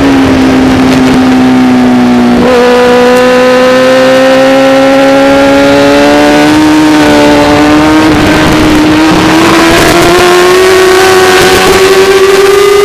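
Racing motorcycle engine running at high revs, held in third gear through a long corner under open throttle, its pitch dipping slightly at first and then climbing steadily as the bike accelerates, with wind rush over it.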